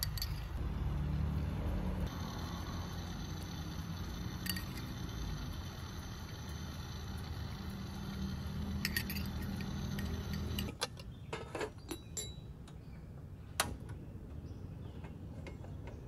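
A metal spoon clinking against an aluminium cooking pot while stirring and basting chicken in sauce. Now and then there is a single clink, then a quick cluster about eleven seconds in, then one sharp clink shortly after, over a steady low rumble that drops away about eleven seconds in.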